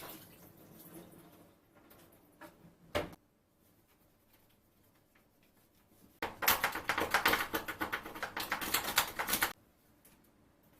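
Rapid clicking and rustling of household items being handled for about three seconds in the second half, after a single knock about three seconds in.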